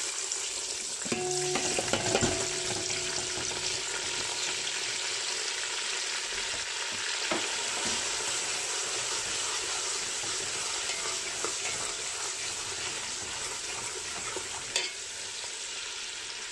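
Chopped onions, peppers and garlic sizzling steadily as they fry in hot oil in a large metal pot. A metal spoon stirring them clinks against the pot several times in the first few seconds, and knocks once more near the end.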